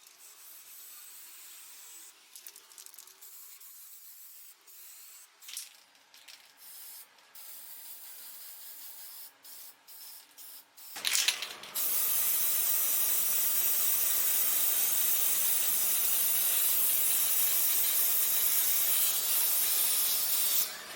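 Faint handling with a few small clicks. Then, about halfway through, a loud steady spraying hiss starts suddenly, holds for about ten seconds and cuts off.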